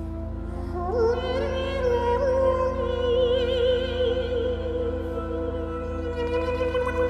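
Wordless high vocal entering about a second in with an upward slide, then holding one long note with a wavering vibrato, over a steady backing of held synthesizer tones.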